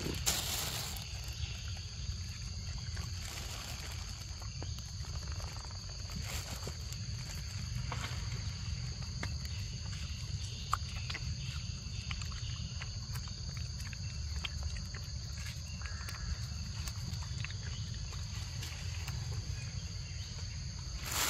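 A steady, high insect drone from the forest over a low rumble, with scattered small clicks and rustles.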